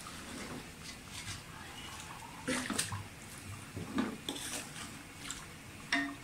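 Wooden spoon stirring chicken pieces in their cooking liquid in a large steel pot: wet sloshing, with a few sharp knocks and scrapes of the spoon against the pot in the second half.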